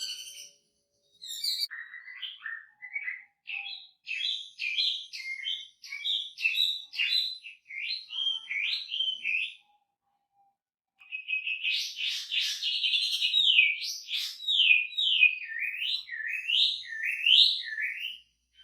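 Chinese hwamei singing: two runs of loud, varied whistled phrases separated by a pause of about a second and a half. The second run opens with a fast trill and goes on into a series of repeated slurred whistles.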